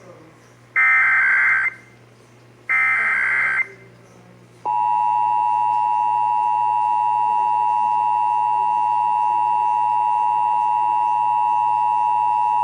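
Emergency Alert System header and attention signal: two bursts of rapid digital data tones about a second each, the last two SAME header bursts, then the steady two-tone EAS attention signal starting about four and a half seconds in. Together they mark the start of an EAS required monthly test.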